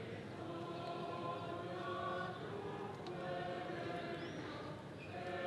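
Voices of a small choir singing a slow religious chant in long held notes.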